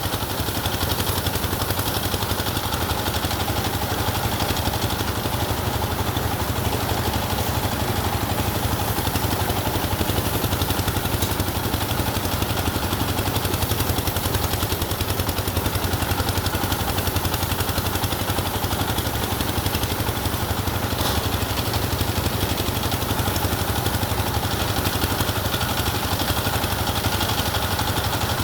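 An engine running steadily at a constant speed, with a fast, even low pulse throughout.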